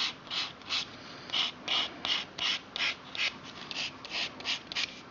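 Foam nail buffer block scraping back and forth over a fingernail in quick strokes, about three a second. It is buffing off the dead top layers of the nail so a patch will stick.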